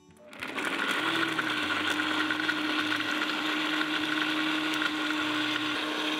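Countertop blender switched on and running at speed, blending cooked yam cubes with water and lemon juice. The motor starts about half a second in, speeds up over the first second, then holds a steady whirring hum.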